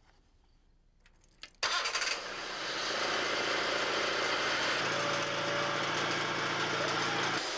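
An engine starting abruptly about a second and a half in, then running steadily, with a lower hum joining for a few seconds near the end.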